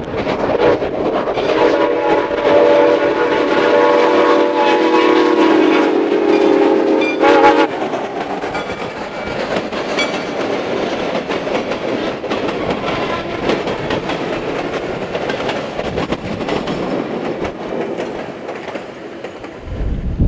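Soo Line 1003, a 2-8-2 Mikado steam locomotive, blows one long steam whistle blast that stops short about seven and a half seconds in. The freight cars and caboose then roll past with wheels clicking over the rail joints.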